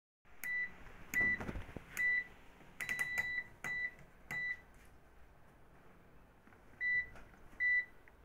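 Washing machine control panel beeping as its buttons are pressed: about ten short high electronic beeps, each starting with a click, with a quick run of them about three seconds in and two more near the end.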